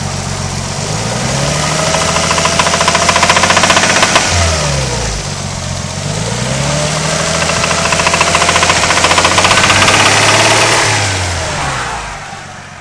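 Nissan RB20DET turbo straight-six revved up twice, each rev held for a few seconds and then let back down, with a rapid knocking running under the engine note: rod knock from a spun rod bearing. The sound falls away near the end.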